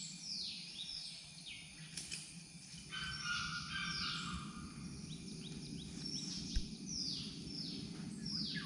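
Wild birds calling: a steady string of high notes, each sliding down in pitch, over a low background hum, with one brief low thump about two-thirds of the way through.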